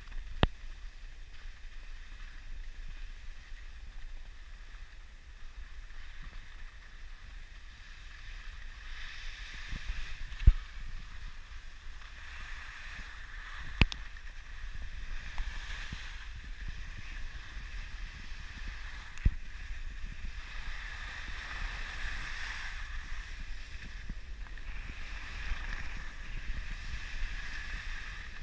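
Skis sliding and carving on packed snow: a steady hiss that swells and fades with the turns, over a low wind rumble on the microphone. A few short sharp knocks stand out, the loudest about ten seconds in.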